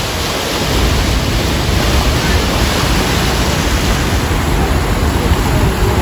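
Steady, loud roar of the water at Niagara Falls, an even rushing noise with a heavy low rumble.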